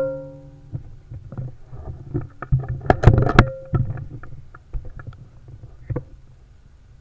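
The ringing tail of an air rifle shot fades out over the first half second. It is followed by a run of clicks and knocks from the rifle being handled, loudest and thickest about three seconds in with a brief ring, then a few scattered ticks.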